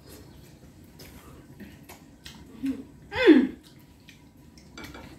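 Faint clicks of forks picking at a frying pan, then about three seconds in one loud, short vocal exclamation that falls in pitch.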